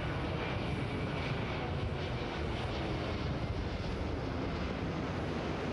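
Airbus A380 airliner's four jet engines as it flies past: a steady, even rumble.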